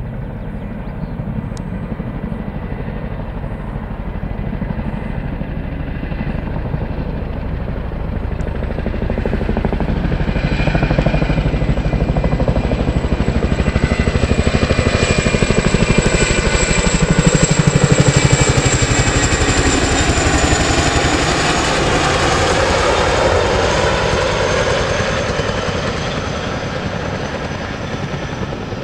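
RAF Chinook tandem-rotor helicopter flying past, its rotors beating and its twin turbine engines whining. The sound grows to a peak a little past the middle, the whine drops slightly in pitch as it passes, and then it fades.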